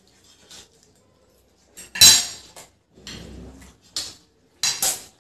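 Metal forks and spoons clinking and scraping on ceramic dinner plates during eating, in scattered short strikes; the loudest is a sharp ringing clink about two seconds in, with a rougher scrape just after and a few more clinks near the end.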